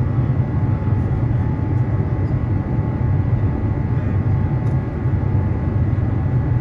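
Airliner jet engines and airflow heard from inside the cabin during the climb after takeoff: a steady deep rumble with faint steady whining tones above it.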